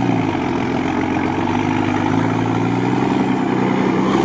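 Mercedes-Benz Unimog's diesel engine running as the truck drives through muddy ruts; its note falls in the first second, then holds steady from about two seconds in.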